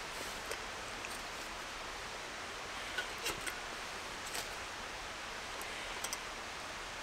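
Steady rush of a river in the background, with a few light clicks and knocks: the sharpest about three seconds in and a quick pair near six seconds as a camping pan is handled.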